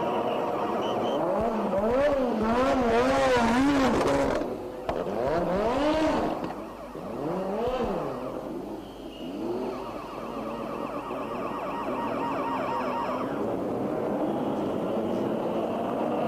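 Formula One cars running on track, with engine notes that rise and fall as cars pass. There is a steady engine drone throughout, and several louder engine passes between about two and eight seconds in, rising and falling in pitch.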